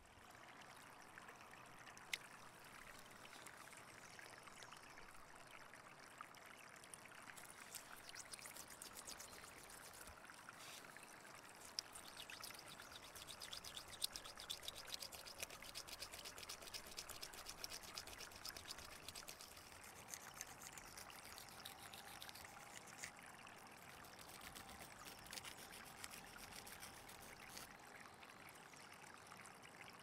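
A small piece of deer bone being rubbed and ground against a flat stone: a faint, steady rasping hiss dotted with small clicks, busiest in the middle.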